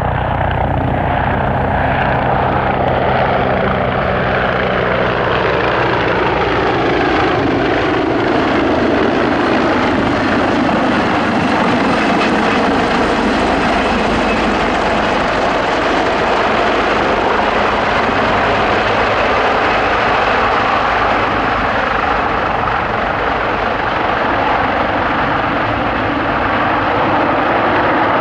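CH-53E Super Stallion heavy helicopter's three turboshaft engines and rotors running loud and steady. A tone in the sound falls in pitch over the first several seconds, and the hiss brightens in the middle and dulls again toward the end.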